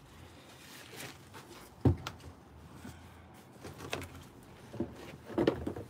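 Heavy Veteran Lynx electric unicycle being handled and laid on its side: one sharp, loud thud about two seconds in, then a few lighter knocks and clunks.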